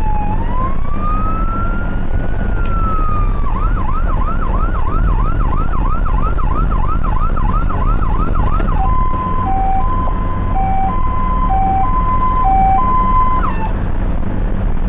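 An ambulance's electronic siren changes pattern: a slow rising and falling wail, then from about three and a half seconds in a fast yelp of about three sweeps a second, then from about nine seconds in a high-low two-tone, which cuts off near the end. Steady engine and road noise from the moving ambulance runs underneath.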